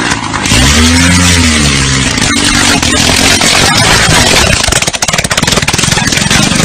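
Small engine of a homemade three-wheeled vehicle revving up and falling back in the first second or two, then running on with a fast, loud rattling clatter.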